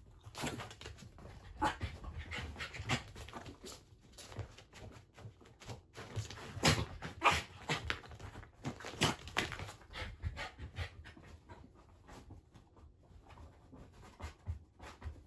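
Shiba Inu dog panting, with a run of short scuffling noises that are loudest about six to nine seconds in.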